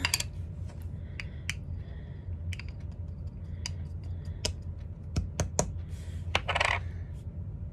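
Small container of loose highlighter powder handled and tapped to get some powder out: scattered light clicks and taps, with a short rustle near the end.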